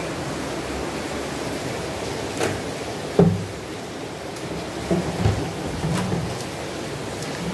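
Heavy rain falling in a steady hiss, with a few sharp knocks and low bumps over it, mostly in the middle and second half.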